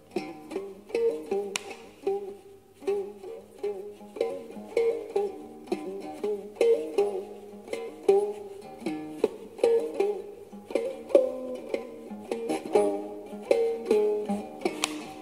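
Khse diev, the Cambodian single-string stick zither with a gourd resonator, played solo: a melody of plucked notes, each starting sharply and ringing briefly before it fades.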